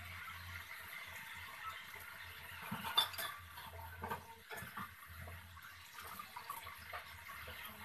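Food sizzling in a frying pan, with a spatula scraping and knocking against the pan as it is stirred; the loudest knock comes about three seconds in.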